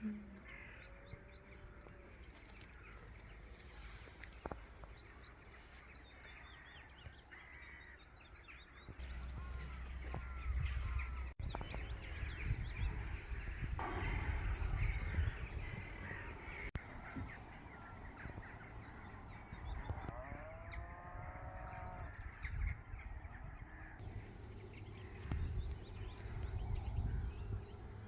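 Wild birds calling, with a group of arching, repeated calls about twenty seconds in and small chirps scattered throughout. A low rumble comes up about nine seconds in and carries on under the calls.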